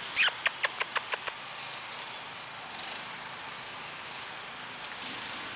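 A person making a quick run of about seven tongue clicks to call puppies, fading over about a second, then only steady outdoor background.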